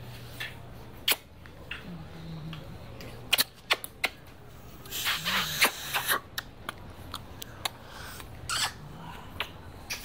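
Irregular sharp taps and clicks with a short burst of scuffing about halfway through: dancers' feet striking and sliding on stone paving.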